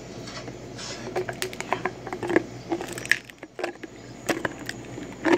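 A Doberman licking at the mouth of a small drink bottle held in its paws: irregular wet smacks and clicks of tongue and bottle, with a louder knock near the end.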